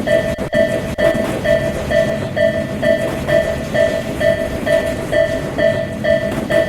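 Japanese level-crossing warning bell ringing an even 'kan-kan' about twice a second, over the rumble of a passing train.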